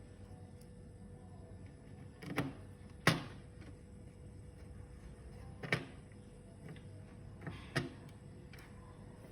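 Plastic and metal laptop parts being handled during reassembly: a handful of sharp clicks and knocks, five or so spread over several seconds, the loudest about three seconds in, over a faint steady hum.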